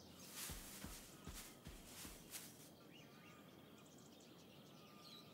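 Near silence: faint outdoor nature ambience with a few soft rustles of foliage in the first couple of seconds, then faint bird chirps.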